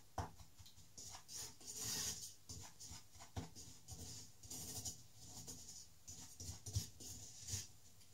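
A wooden spoon scraping and stirring a thick, reduced cream-and-sugar mixture around a stainless steel saucepan, in uneven strokes with a few sharper knocks of the spoon against the pan.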